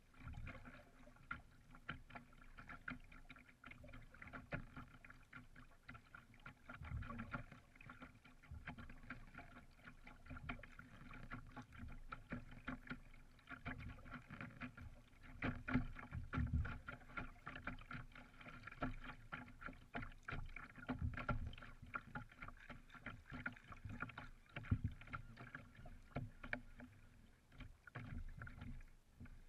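Small waves lapping and splashing against the bow of a paddled canoe moving through choppy sea water, in irregular slaps and swishes.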